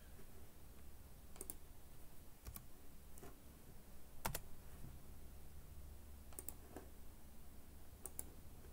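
Faint, scattered clicks of a computer mouse as sketch lines are selected, about eight over several seconds, the loudest about four seconds in, over a faint low hum.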